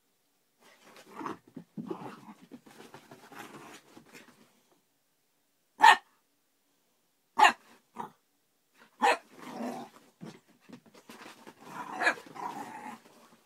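Young whippet–Jack Russell cross puppy playing: stretches of growling, with three sharp, loud barks in the middle.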